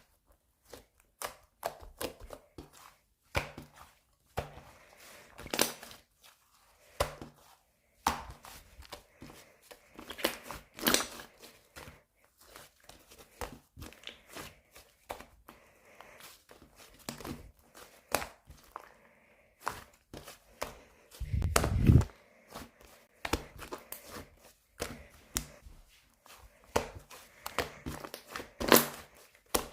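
Fluffy clay slime being squeezed, stretched and pressed by hand, giving irregular sticky crackles and pops, with one heavier thump about three-quarters of the way through.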